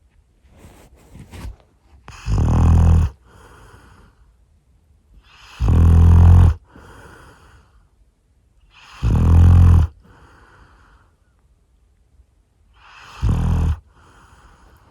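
Labrador retriever snoring in its sleep: four loud snores about three to four seconds apart, each followed by a softer breath out.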